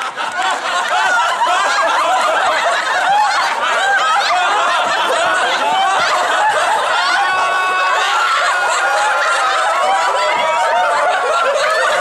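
A group of young people laughing together, many voices overlapping, with a few drawn-out held voices in the second half.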